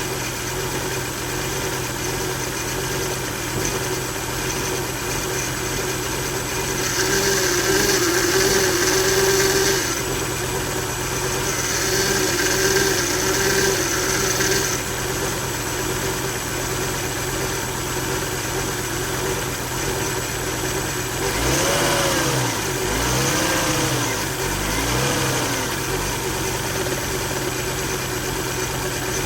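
2000 Volvo V70's five-cylinder engine idling roughly with a steady whine, its failed electronic throttle module (ETM) the cause. Twice the running grows louder and harsher for a few seconds, and about two-thirds of the way through the engine revs up and down three times on its own after a single tap of the gas pedal.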